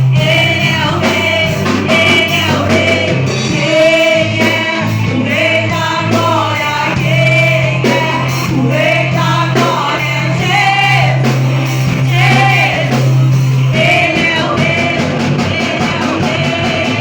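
Church praise group singing a worship song with band accompaniment: voices over a regular drum beat and long held low bass notes.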